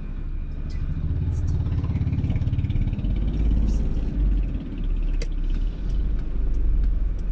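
Low, steady rumble of a car's engine and road noise heard from inside the cabin while creeping forward in slow traffic.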